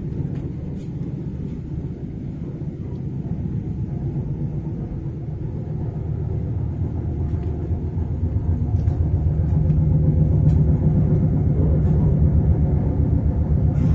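Lastochka (Siemens Desiro RUS) electric train running, heard from inside the passenger car as a steady low rumble. It grows louder about eight seconds in, with a few faint clicks.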